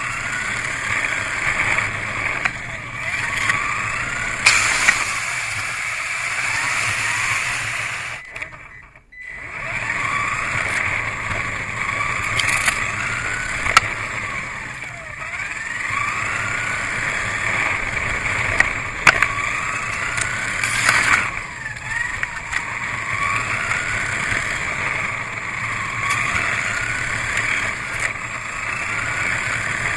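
Kyosho Mini-Z electric RC car's motor and gears whining, rising and falling in pitch as it speeds up and slows down, with a few sharp knocks and a brief drop-out of the sound about eight seconds in.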